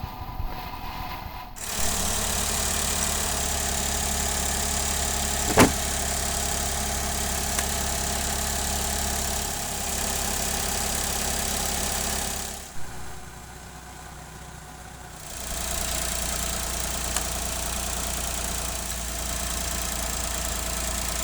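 Engine of a Suzuki Every (DA64W) van idling steadily, with one sharp click about five and a half seconds in and a quieter stretch of a couple of seconds past the middle.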